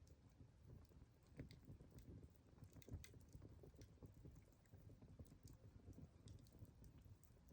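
Wood campfire burning, faint irregular crackles and pops over a low rumble.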